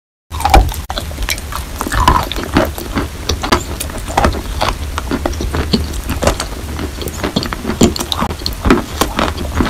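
Close-up biting and chewing of a piece of chalk coated in brown clay paste: a dense run of crunches and mouth clicks that starts abruptly just after the beginning.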